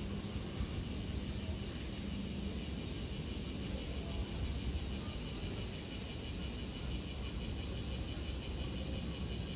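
Insects calling in a fast, steady pulsing rhythm that grows clearer a few seconds in, over a low steady rumble of outdoor background noise.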